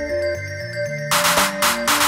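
Background music: a melody of short stepping notes, with crisp percussion hits coming in about a second in.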